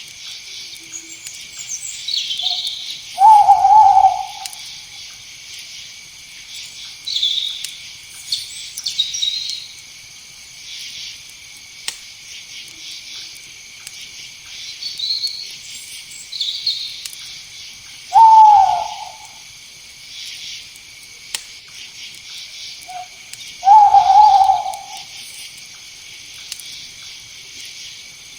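An owl hooting three times, widely spaced, each hoot briefly loud and low, over a steady high chorus of night insects with scattered faint chirps.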